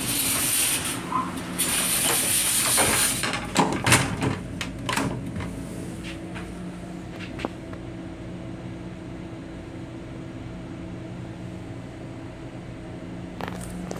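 An M7 railcar restroom's sliding door moves with a hissing rush for about three seconds, then a quick run of clicks and knocks as it latches. After that there is only the steady hum of the railcar.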